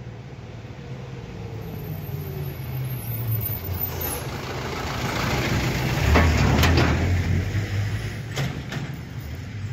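Vehicle engine running at low revs, swelling to its loudest about six seconds in and then easing off, with a few sharp knocks around the loudest point and again near the end.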